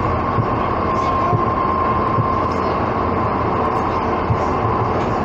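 Docklands Light Railway train running at speed through a tunnel: a steady rumble of wheels on rail with a steady high whine over it, and a few soft low thumps from the track.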